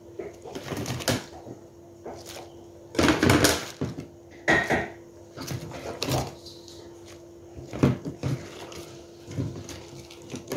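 Scattered knocks and clatter of kitchen handling as vegetables are put into a pot of soup, over a steady low hum.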